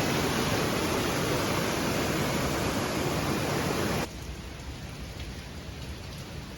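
Waterfall water falling in a steady rush that cuts off suddenly about four seconds in, leaving a fainter steady hiss of rain.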